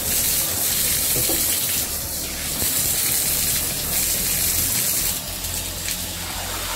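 Bath tap running steadily, hot water pouring into a clear plastic cup held under it.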